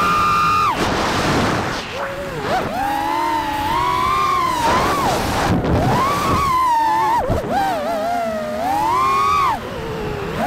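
FPV quadcopter's brushless motors whining, the pitch swooping up and down with the throttle and dropping sharply a few times, with wind rushing over the onboard microphone.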